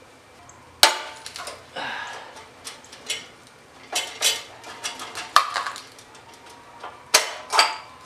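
Metal clinks and clanks of a steel combination wrench on the brake-line flare nuts of a brake proportioning valve, irregular sharp knocks with lighter taps between, the loudest about a second in and again about seven seconds in.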